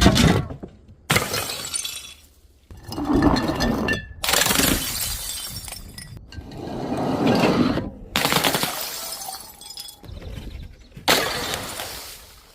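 Glass bottles shattering, one after another: about six separate crashes with sudden starts and fading tails of falling shards, a second or two apart, some cut off abruptly.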